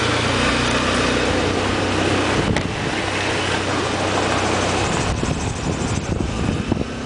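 Motorcycle engine running steadily under a loud, even rushing noise, the sound of riding with air buffeting the microphone.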